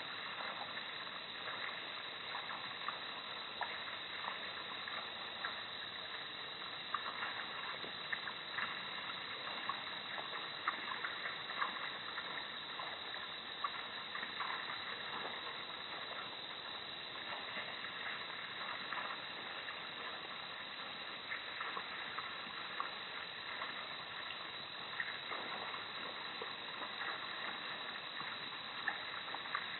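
Steady night-time background noise through a security camera's microphone: a constant hiss with faint steady tones and many scattered soft clicks.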